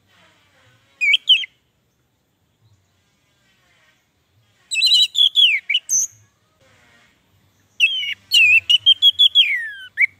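Orange-headed thrush (anis merah) singing: three bursts of quick, varied whistled notes, a short one about a second in, a longer one around the middle, and the longest near the end, which closes on a falling slur.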